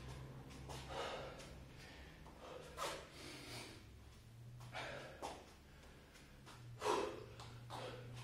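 A man breathing hard between burpees, panting out of breath from the exertion, with heavy exhalations every second or two and the strongest about seven seconds in. A low steady hum runs beneath.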